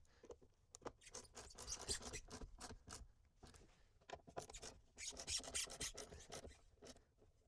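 Faint scraping and rubbing in quick, short strokes as the cubby's mounting screws are snugged up by hand. The strokes come in two busy spells, about a second in and again about five seconds in.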